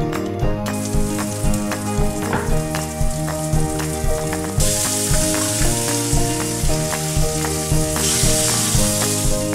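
Food sizzling in a frying pan on the stove, faint at first and much louder from about halfway through, cutting off suddenly at the end. Background music with a steady beat plays throughout.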